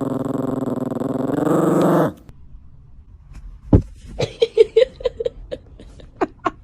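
A dog growling, one long steady growl that cuts off about two seconds in. After a pause comes a thump, then a quick run of short high-pitched yelps.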